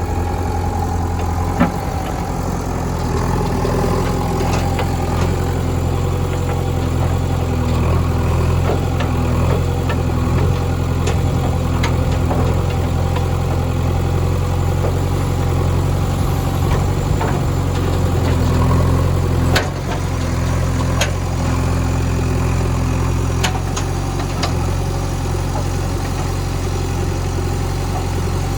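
Diesel engine of a JCB backhoe loader running steadily at an even pitch, with occasional sharp clanks and knocks scattered through it.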